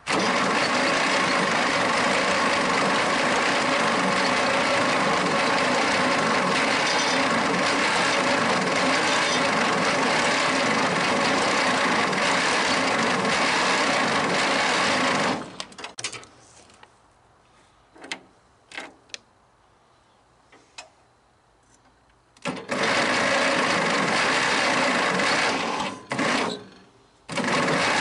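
Chrysler industrial 218 flathead six being cranked over on its starter without firing: one long spell of about fifteen seconds, then after a pause with a few faint clicks, two shorter spells split by a brief stop. The engine has low compression on five cylinders and none on one, which the owner puts down to a valve stuck open.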